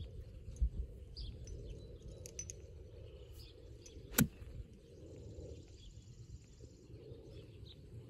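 A golf iron striking a rubber bouncy ball: one sharp, short crack about four seconds in. Birds chirp faintly against a low outdoor background.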